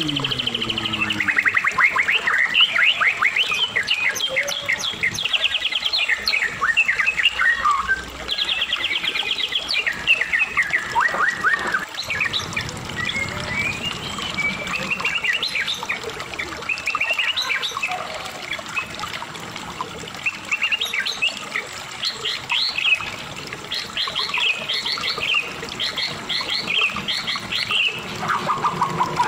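White-rumped shama (murai batu, Medan type) singing in continuous full song: rapid trills of quickly repeated notes mixed with rising and falling whistled phrases.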